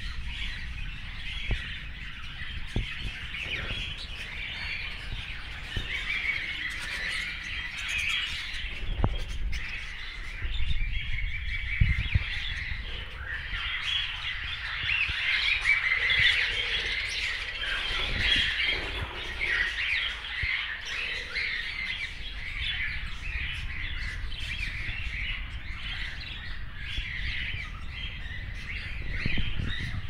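A flock of caged budgerigars chattering without pause, many short high calls overlapping.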